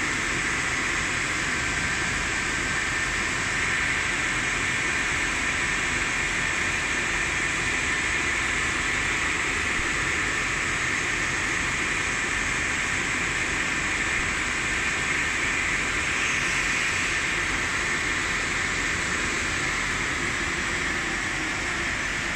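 Large electric motor rotor spinning on a belt-driven CEMB dynamic balancing machine during an unbalance measurement run: a steady rushing noise with a faint high whine.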